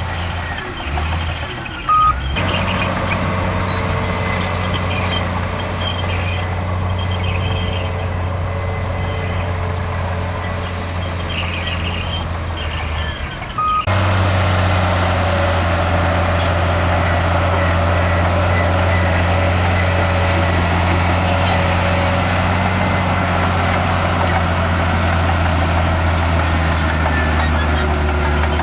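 Heavy diesel engines of earthmoving machinery running steadily. A short high beep sounds twice, about two seconds in and again near fourteen seconds, each just before the engine sound changes abruptly.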